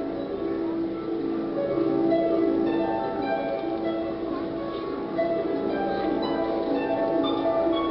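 Instrumental music track for the dance, with many held and plucked notes shifting in pitch.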